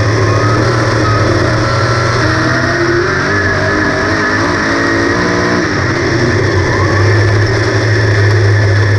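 V8 engine of a 358 modified dirt race car, heard from on board. It runs at a steady, loud pitch, then dips and climbs back through the middle of the stretch as the driver lifts and gets back on the throttle.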